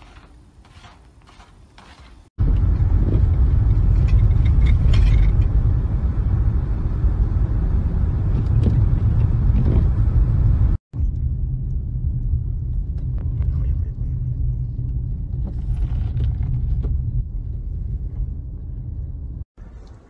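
Steady low rumble of a car driving on a snow-covered road, heard from inside the cabin. It starts suddenly after a couple of seconds of faint steps in snow, stops abruptly about halfway, and a similar low rumble starts again at once and runs until just before the end.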